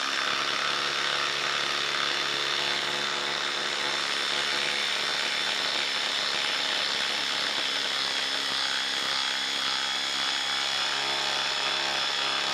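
Ryobi cordless impact driver hammering steadily without a break while driving a long lag screw through a socket adapter into a wooden log round.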